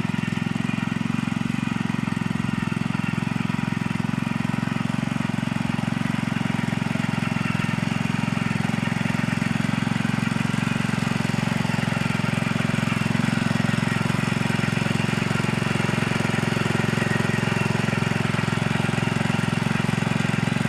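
Power tiller engine running steadily under load while ploughing, a continuous even drone with no change in speed.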